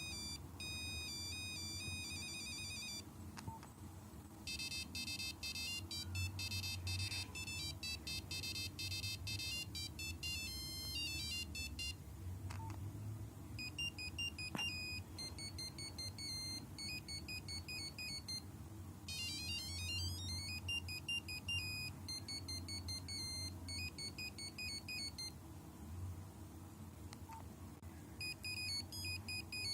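Nokia 5125 mobile phone playing one built-in ringtone after another: short, high beeping melodies, one note at a time, each stopping after a few seconds before the next tune starts.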